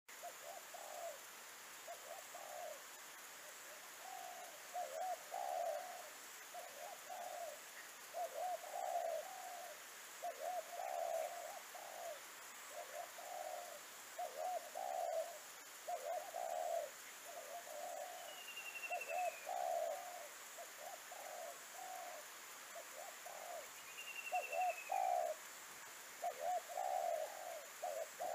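Spotted dove cooing over and over, its low phrases following one another with only short gaps. A different bird gives a short falling whistle twice in the second half.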